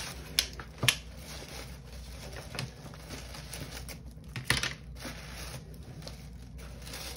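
Tissue-paper wrapping rustling as art supplies are pulled out of a cardboard box, with three sharp clacks as plastic-packaged items are set down on a wooden desk, the loudest about a second in.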